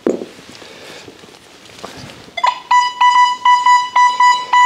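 A brief tap as a brass buckle is set down on cardboard. About two and a half seconds in, a Nokta Makro Legend metal detector starts sounding a steady-pitched target tone that pulses about four times a second as the coil sweeps over the buckle. It is the tone for a high target ID of 53–54, the sign of a big brass object.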